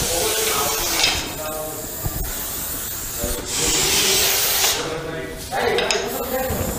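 Russell's viper hissing: two long, forceful hisses, the louder one lasting over a second about halfway through.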